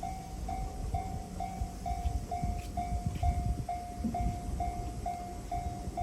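Japanese level-crossing alarm ringing in an even ding-ding, about two strikes a second, over the low rumble and knocking of a 201 series electric train.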